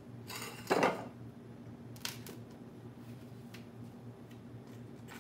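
Quiet handling noises as toothpicked grape tomatoes are pushed into a plastic-wrapped styrofoam cone: a short scraping rustle about a second in, then a few light clicks. A faint steady low hum runs underneath.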